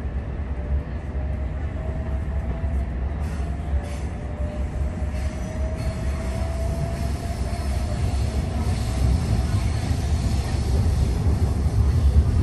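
Sydney Trains OSCAR (H-set) electric double-deck train heard from inside the carriage as it pulls away and accelerates: a steady low rumble growing gradually louder, under a faint motor whine that rises slowly in pitch.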